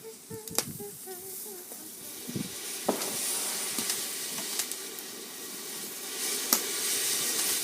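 A firework burning with a steady sizzling hiss that builds over the first couple of seconds, broken by sharp cracks every second or two.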